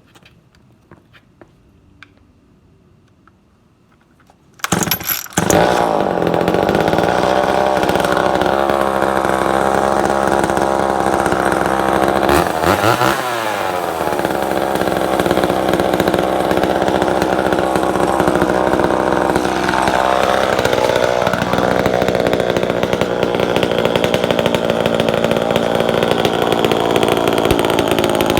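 1970s Sears two-stroke chainsaw pull-started about five seconds in, catching at once and running steadily. Its pitch drops and climbs back briefly around the middle, and it keeps running to the end.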